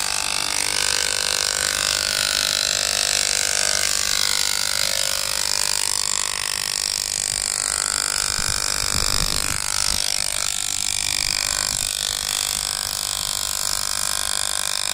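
Corded electric dog-grooming clipper buzzing steadily close by as it is run through a dog's thick fur, its tone wavering slightly as the blades meet the coat.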